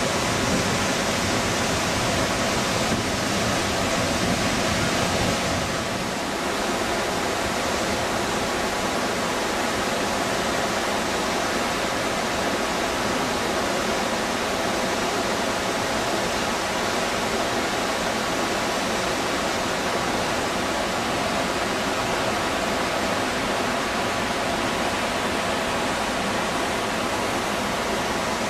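Steady rushing of a waterfall and its whitewater creek, a little quieter from about six seconds in.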